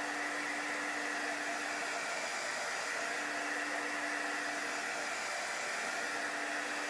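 Handheld embossing heat gun blowing steadily: a rush of air over a steady hum, drying freshly applied chalk paste.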